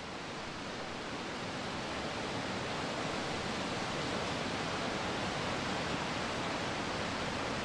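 Steady rushing hiss, slowly growing louder.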